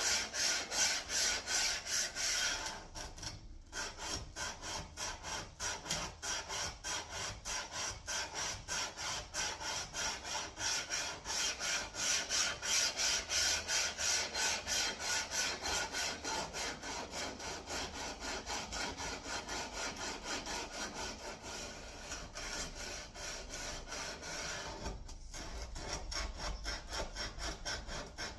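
80-grit sandpaper wrapped around a small steel block, rubbed back and forth by hand along a steel chopper blade wet with WD-40: a steady rasping rhythm of about three strokes a second, pausing briefly twice.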